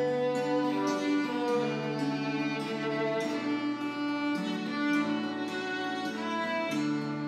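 Instrumental music: a violin playing a melody in long held notes, changing about once a second.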